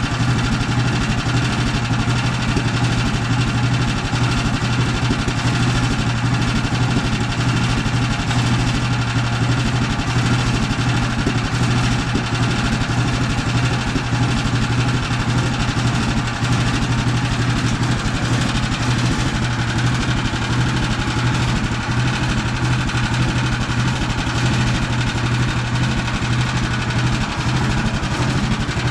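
Portable sawmill's gasoline engine running steadily at constant speed, with no change in pitch or load.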